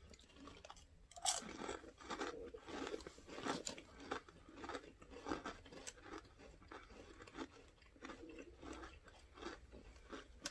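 Crunching and chewing of crispy Thai coconut rolls with banana: a sharp bite about a second in, then many small irregular crunches.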